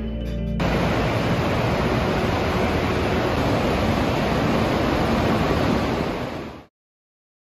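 Steady rush of fast-flowing mountain river water, a dense even hiss with no rhythm; it cuts off abruptly near the end.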